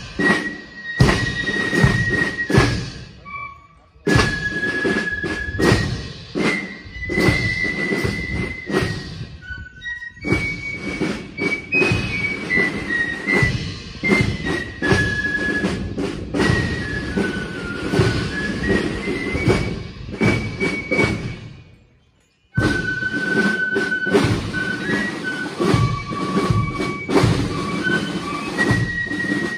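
Marching band playing a march as it passes, with drums beating time under a high melody line. The music cuts off and comes back abruptly twice, about four seconds in and again near the three-quarter mark.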